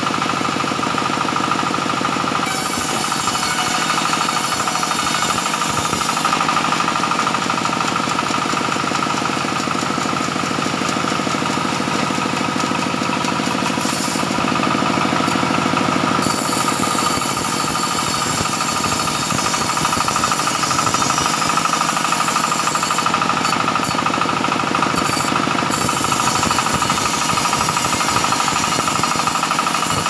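Sawmill saw running and cutting teak planks: a loud, steady machine noise with a continuous whine. The high hiss drops away and returns a few times as the cut changes.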